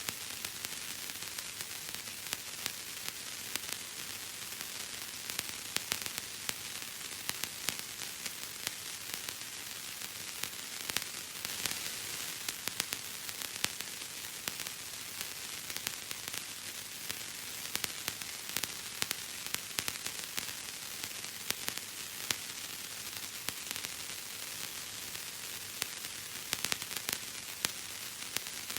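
Bubble wrap being crushed and popped: a dense, steady crackle of many small irregular pops over a constant hiss.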